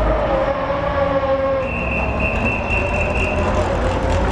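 Racing car engine running at steady revs, with a thin high whine that comes in about two seconds in and fades out about a second later.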